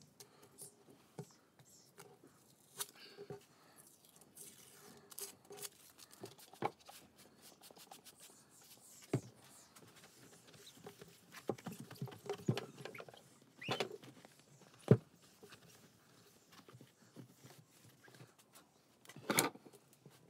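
Scattered light clicks, taps and brief rubbing of fingers and a cloth on a double-glazed window pane, as a paper label is pressed onto the glass and the glass is wiped. One sharper click comes about three quarters of the way through, and a louder rustle comes near the end.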